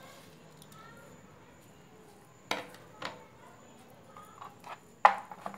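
Kitchen clatter while pork ribs are basted with a chimichurri marinade: a few sharp clicks and knocks of a basting brush and dishes, two spaced apart in the middle and a quick cluster near the end, the loudest about five seconds in.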